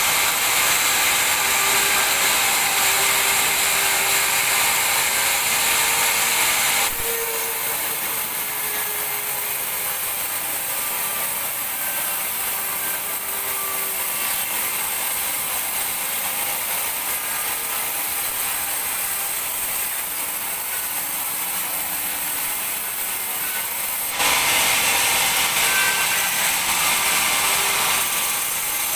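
Large sawmill bandsaw running through a teak log, a steady bright noise with faint ringing tones. It turns quieter and duller about seven seconds in and comes back to full strength near the end.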